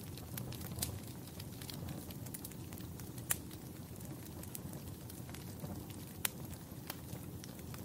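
Wood fire in a fireplace crackling: a steady low rumble of flames with scattered sharp pops, the loudest about three seconds in and again about six seconds in.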